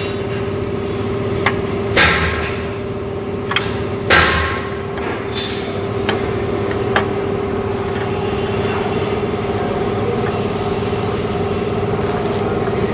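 Metal knocks and taps on the engine's cylinder head as a camshaft is being fitted: two louder ringing knocks about two and four seconds in, with a few lighter taps between and later. A steady mechanical hum runs underneath.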